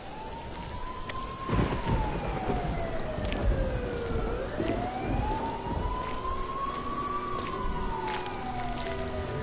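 Slow wailing siren, rising and falling twice, over a rain-like hiss with scattered clicks: the intro of a rap track. Steady held musical tones come in about halfway.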